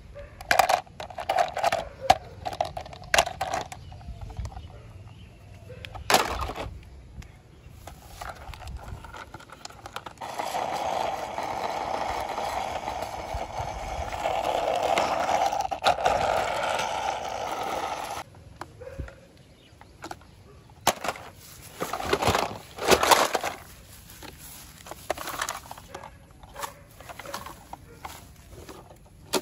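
Plastic toy van's wheels rolling along a concrete ledge, a steady grinding rattle lasting about eight seconds in the middle. Sharp plastic clicks and knocks from handling the toys come before it and again later.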